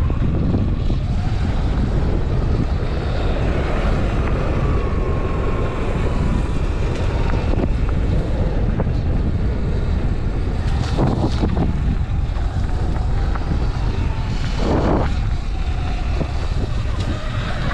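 Wind buffeting the microphone while riding a Sur Ron electric dirt bike off-road. Over it runs the faint whine of the bike's electric motor, gliding in pitch. Two brief louder gusts of noise come about eleven and fifteen seconds in.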